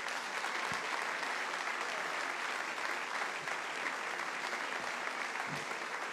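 A large audience applauding steadily, with dense, even clapping.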